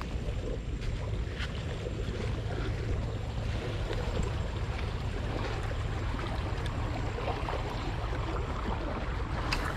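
Steady outdoor noise of wind rumbling on the microphone and water rushing, with a few faint clicks.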